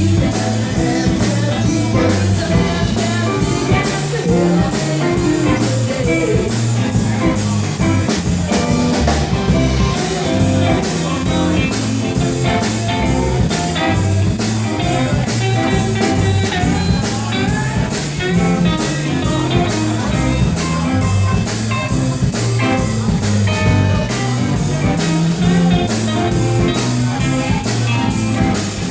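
A blues band playing live, with guitar, bass and drums keeping a steady beat, in an instrumental stretch between sung verses.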